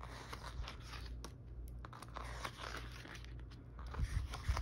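Paper rustling and crinkling as the pages of an album booklet are handled and turned, with a few soft knocks near the end.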